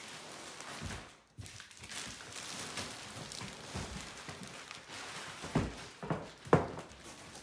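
Plastic sheeting and crumpled packing paper rustling as a plastic-wrapped cello case is lifted out of a large cardboard box, with three dull thumps near the end, the last the loudest.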